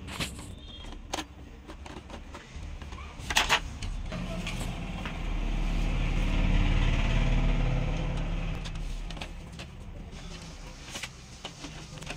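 A few sharp clicks of screws and plastic printer parts being fitted by hand, then a low rumbling hum that swells over a few seconds and fades away.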